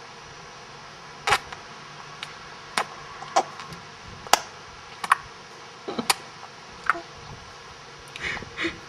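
A child clicking her tongue in her mouth, a sharp "chok" about ten times at uneven intervals, a second or so apart.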